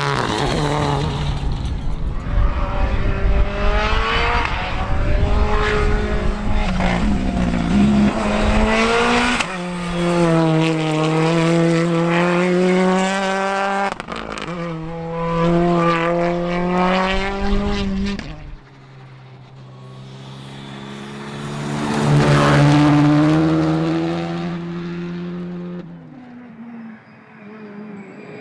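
Rally car engines revving hard, pitch climbing through the gears with sharp drops at the shifts. Near the end a car passes by, swelling to a peak and fading away.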